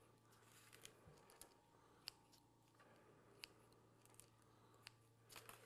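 Faint snips of kitchen scissors cutting through soft yeast dough: a few sharp clicks of the blades closing, about one a second, over a low steady hum.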